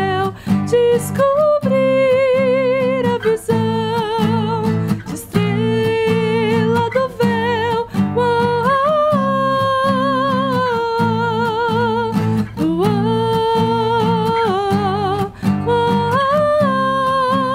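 A woman singing long held notes with vibrato, sliding up into new phrases several times, over a strummed acoustic guitar: a live acoustic performance of a song.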